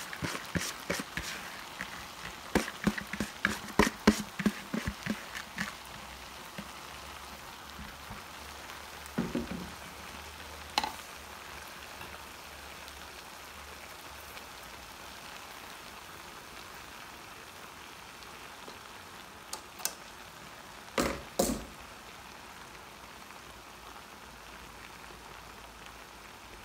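Pot of chicken biryani gravy sizzling steadily on the stove as the rice is added. A quick run of spoon clicks and knocks against the pot comes in the first few seconds, and a few single knocks follow later.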